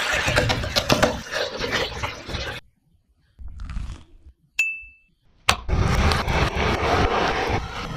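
Kitchen clatter of utensils and dishes, with a single sharp clink that rings briefly about four and a half seconds in, after a short pause.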